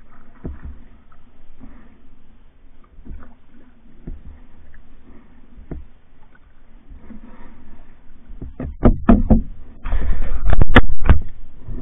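Pack canoe being paddled: soft, regular paddle strokes with water splashing and dripping, then near the end a cluster of sharp, loud knocks and a brief loud burst of noise.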